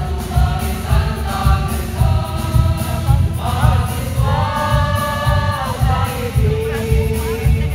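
Mixed choir singing a march through microphones, holding a long chord around the middle, over a steady low beat.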